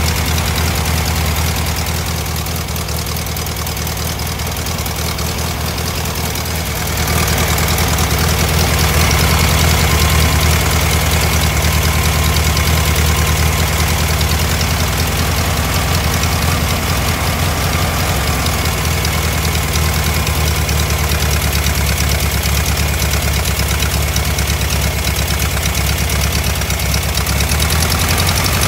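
Air-cooled Volkswagen flat-four engine in a VW Thing idling steadily with its ignition timing far out. About seven seconds in, the engine gets louder and busier, then holds steady.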